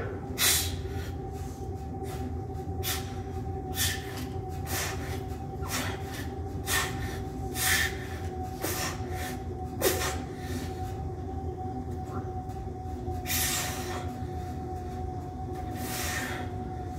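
A lifter's forceful breathing through a heavy barbell bench press set, a sharp exhale about once a second with each rep and a longer, heavier breath late in the set, over a steady background hum.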